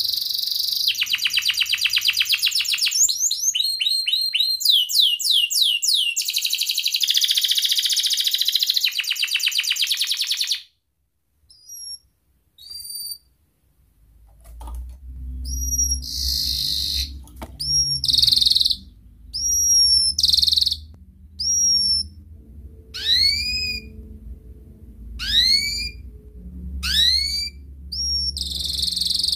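Domestic canary singing: a long run of fast trills and rising sweeps that breaks off about ten seconds in. After a short pause, separate high chirps and upswept whistled notes repeat about once a second over a low hum, and continuous trilling starts again near the end.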